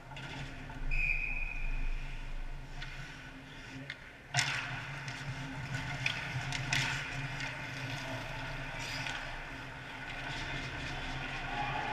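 Ice hockey play heard from behind the goal: skates scraping the ice and sticks and puck clacking, with a sharp crack about four seconds in, over the steady low hum of the arena. A short high tone sounds about a second in.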